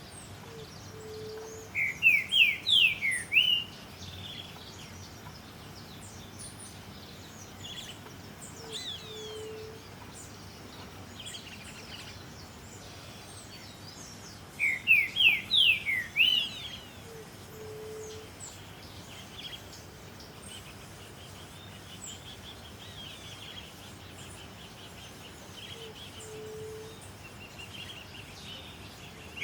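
Green-winged saltator singing: twice, a quick phrase of about six or seven slurred notes that swoop up and down, each phrase about two seconds long. Between the phrases there are faint, high chirps from other birds and a short low note that repeats every eight or nine seconds.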